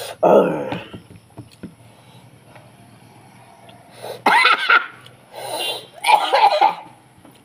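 A man laughing loudly without words, in short bursts: once near the start, then several more from about four seconds in. In between there are only faint small clicks of eating with the hands.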